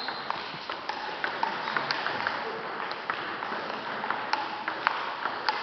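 Table tennis balls clicking off tables and bats: sharp, short knocks two or three times a second at uneven spacing.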